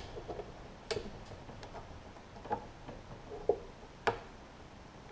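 A few scattered light clicks and taps of a socket and screws against metal parts as mounting screws are finger-threaded on a Briggs & Stratton push-mower engine; the sharpest click comes about four seconds in.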